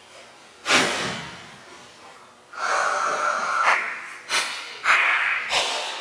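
A person's heavy, breathy exhales: a sharp one about a second in that fades away, a longer one past the middle, then short puffs about twice a second.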